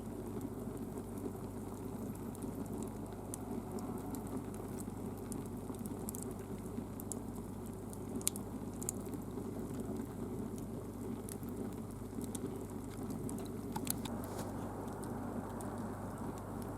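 Wood fire burning, with scattered sharp crackles and pops over a steady low rushing noise.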